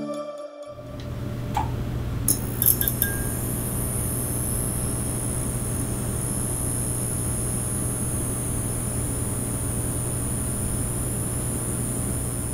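The electronic music cuts off, then a steady low hum with a high hiss begins. About two and a half seconds in, a few light glassy clinks sound over it.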